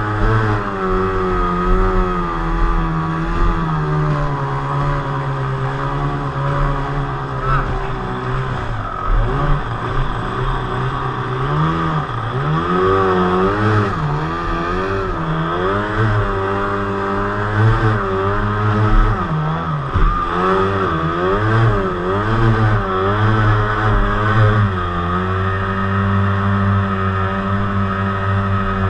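Outboard motor of a homemade Glen-L Super Spartan hydroplane running at speed. Its pitch holds steady, rises and falls repeatedly through the middle stretch, then steadies again near the end.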